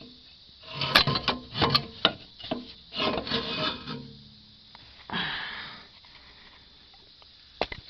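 Starter motor being worked loose and pulled out under the vehicle: metal clunks, scraping and rubbing against nearby parts over about three seconds, then another short scrape about five seconds in and a few sharp clicks near the end.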